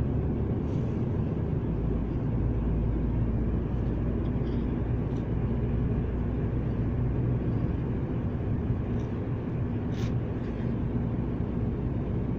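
Steady low rumble of a car's road and engine noise, heard from inside the cabin.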